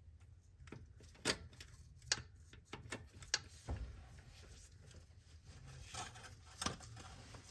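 Faint, scattered clicks and knocks, about half a dozen at irregular intervals, over a low hum.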